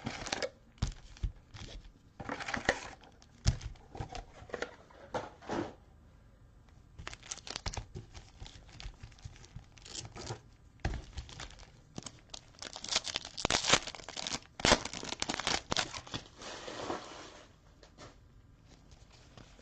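Trading-card pack wrappers being torn open and crinkled by hand in irregular bursts, quieting near the end.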